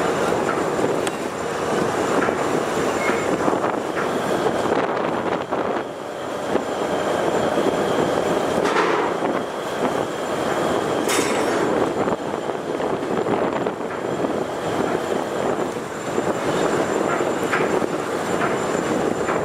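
Steady rushing rumble of wind and rough, storm-whipped river water, with a couple of sharp splashes about nine and eleven seconds in.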